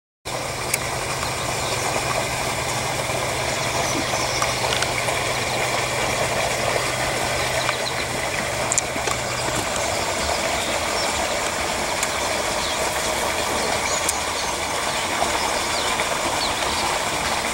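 Water pouring from a corrugated drainage pipe and splashing into the water below, a steady rushing. A low steady hum runs under it and stops about halfway through.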